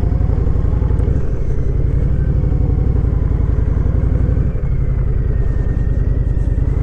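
Honda VTX1300R's V-twin engine running at low revs as the motorcycle rolls slowly. The engine note changes twice, about a second in and again about four and a half seconds in.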